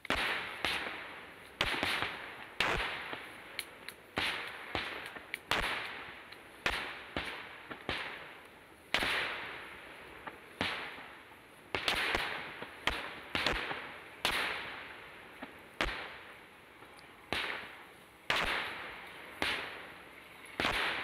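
Aerial firework shells bursting in a rapid, continuous string of bangs, about one a second, each trailing off over a second or so, some overlapping.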